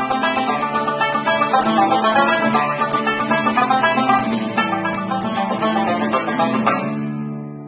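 Irish tenor banjo picking a fast run of quick notes over acoustic guitar chord accompaniment. Near the end the tune stops on a final chord that is left ringing and fading.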